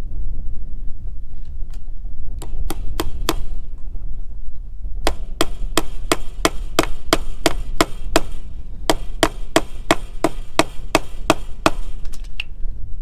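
Fence staples being hammered into a wooden fence post to hold the gate's wire loops: four quick blows, then two long runs of rapid strikes at about four a second. Wind rumbles on the microphone throughout.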